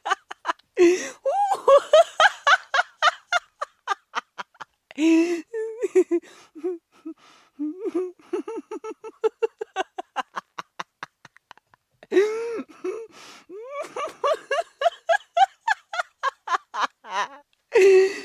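A woman laughing hard in runs of quick, pulsing "ha-ha" bursts, broken by sharp gasping in-breaths about a second in, around five seconds in and around twelve seconds in.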